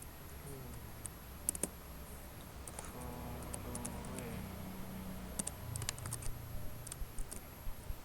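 Computer keyboard typing in scattered keystrokes: a pair about a second and a half in, then a quicker run of keys a little past the middle.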